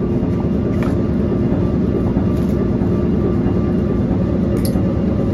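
Steady drone of heavy machinery with a constant hum running under it, typical of a ship's engine-room machinery. A few faint clicks of a cardboard box being handled.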